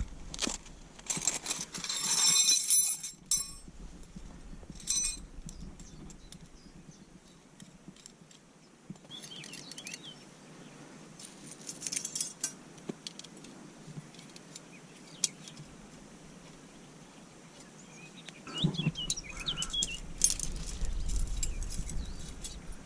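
Metal camping cookware and stove parts clinking and rattling as they are handled, in several short bursts with quieter stretches between.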